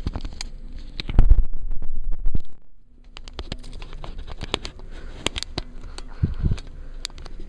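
Handling noise on a camera's built-in microphone as the camera is fitted onto a tripod: scattered clicks and scrapes, with a heavy rubbing rumble from about a second in that stops abruptly a second and a half later.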